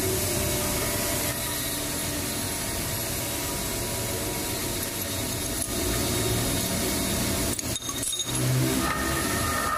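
Steady hum of workshop machinery running. About nine seconds in, a steady higher whine joins as the metal lathe is switched on and its chuck starts turning.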